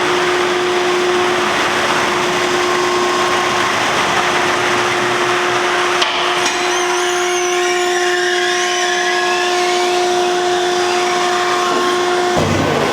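REC 7242TB tire baler's hydraulic power unit running with a steady whine while the ram is raised to eject the bale on its chains. High squeaks join in about halfway through, and the whine cuts off just before the end.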